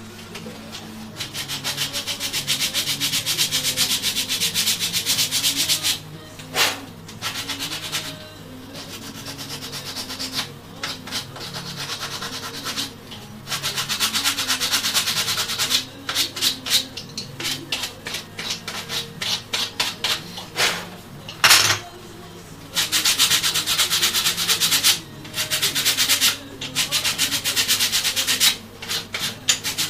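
A small wooden part being sanded by hand: runs of quick back-and-forth rubbing strokes lasting a few seconds each, broken by short pauses, with a couple of sharp knocks.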